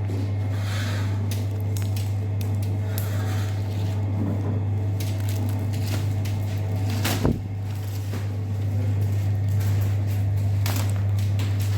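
A steady low hum with scattered light knocks and handling noises, and one sharper knock about seven seconds in.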